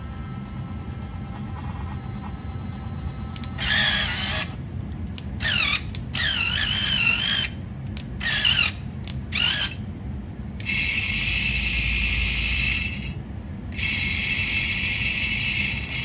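Small electric gear motors of a DieCast Masters CAT 297D2 remote-control skid steer and its rotating floor-sweeper brush attachment, whining in a series of short bursts, some wavering up and down in pitch, then in two longer runs in the second half.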